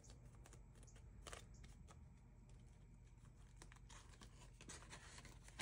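Near silence with a few faint rustles and light clicks of a paper banknote and a translucent cash envelope being handled, the bill slipped into the envelope.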